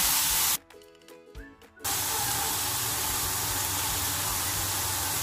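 Marinated chicken breasts sizzling steadily on a hot, butter-greased grill pan. The sizzle breaks off for about a second shortly after the start, where a few faint steady tones are heard, then resumes evenly.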